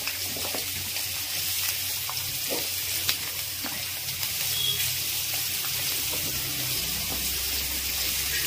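Sliced onions and green chillies frying in hot oil in a steel kadai, a steady sizzling hiss with a few faint clicks.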